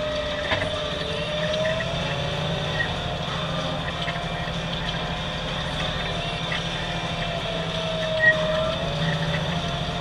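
Deutz-Fahr 7250 tractor running steadily under load while pulling a Kuhn plough, a low engine drone with a whine that slowly wavers in pitch. A brief sharp blip about eight seconds in.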